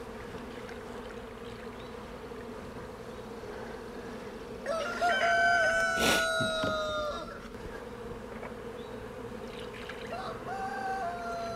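A rooster crows twice: a long, loud crow a little under five seconds in, and a shorter, fainter one near the end. Underneath is the steady hum of honeybees flying around the hive, and a sharp click sounds in the middle of the first crow.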